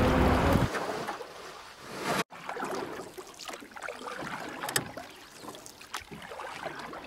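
Water sloshing and dripping in a plastic tub as a wet web of dissolving water-soluble fibre is handled and lifted. There is wind rumble on the microphone in the first second, and the sound breaks off briefly a little over two seconds in.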